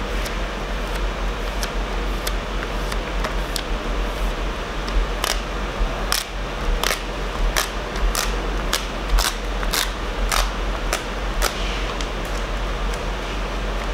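A run of sharp little taps and ticks, about three a second, bunched in the middle: a dust-removal sticker being dabbed against and pulled off the adhesive side of a tablet screen protector. A steady hiss and low hum lie underneath.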